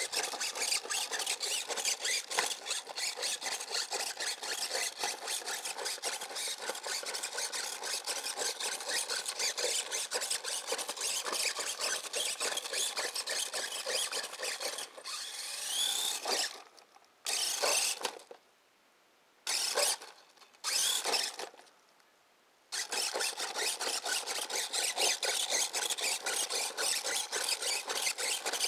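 Electric Axial RC rock crawler's motor and gears whining as it drives, with a rapid fine ticking in the whine. About 15 seconds in the whine rises, then comes four short throttle bursts with stops between them before it runs steadily again.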